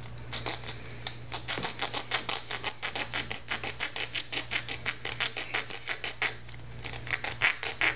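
Hand-held metal saw blade sawing back and forth through a small plastic camera mount, in quick even strokes about five a second. Near the end the strokes stop briefly, then start again.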